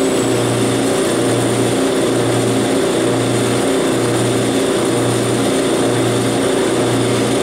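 Clausing 5914 metal lathe, converted to CNC, running steadily while turning an aluminium part: motor and drive noise with a low hum that pulses a little faster than once a second.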